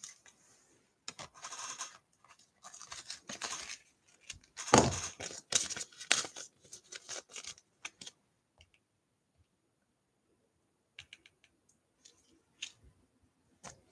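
Irregular rustling and scraping handling noise with a single knock about five seconds in, then a few faint clicks near the end.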